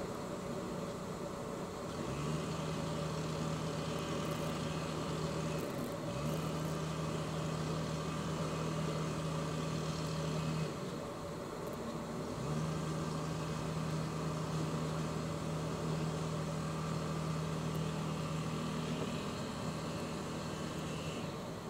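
Norman 20 Conquest cruiser's engine running at low speed: a steady mechanical hum with a low drone that comes in for stretches of several seconds and drops out, twice briefly near 6 s and 11 s.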